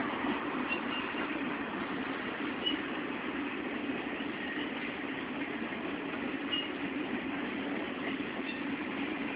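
Triple Crown RoadRailer trailers rolling past on their rail bogies: a steady rolling noise of steel wheels on rails, with a few brief high squeaks.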